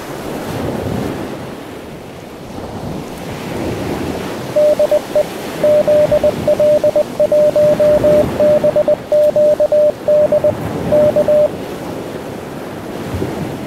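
A Morse code tone at one steady pitch, keyed in dots and dashes from about five to eleven seconds in, over the steady wash of ocean surf.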